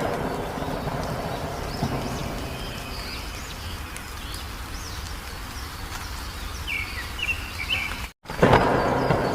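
Wild songbirds chirping in short series of quick falling notes, over a steady rain-like hiss. About eight seconds in the sound drops out for a moment, then comes back with a loud rushing swell.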